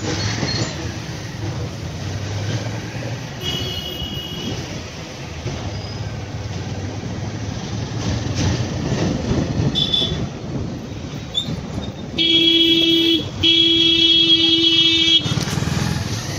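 Busy street traffic with motorcycles going by, and vehicle horns sounding: a couple of short toots, then near the end a long, loud horn blast held for about three seconds with one brief break.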